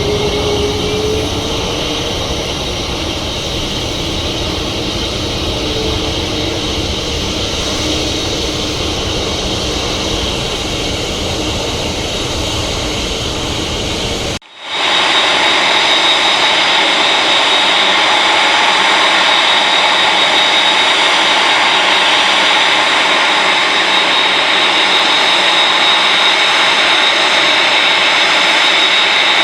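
Boeing 747-8F's four General Electric GEnx-2B turbofan engines running with a steady jet noise. About halfway through the sound cuts out for a moment and returns as a steady high whine with less rumble.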